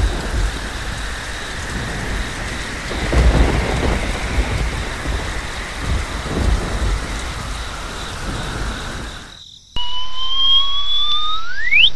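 Steady rain with low rumbles of thunder swelling twice, cutting off abruptly about nine seconds in. A rising whistle-like tone then sweeps upward, climbing steeply at the very end.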